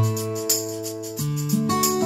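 Instrumental background music: sustained pitched notes that change every half second or so over a light, regular beat.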